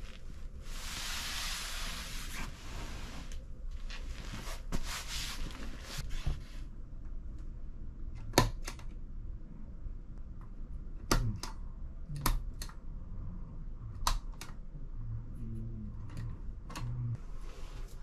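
Pillowcase and bedding rustling under a pressing hand, then a series of sharp clicks, several in quick pairs, from wall light switches being pressed on and off.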